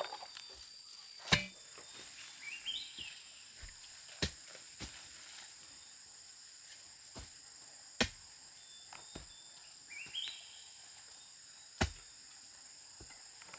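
Forest insects, crickets or cicadas, shrilling steadily at two high pitches, with two short rising chirps. Four sharp knocks are spaced three to four seconds apart.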